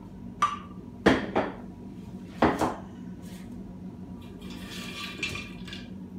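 Ceramic treat jar's lid clinking against the jar as it is lifted off and set down: four sharp clinks in the first two and a half seconds. Then a rustle of hard baked dog treats as a hand scoops them out of the jar.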